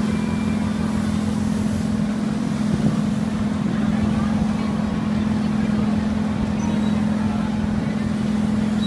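Steady low mechanical drone of fairground ride machinery running, a constant hum that does not rise or fall.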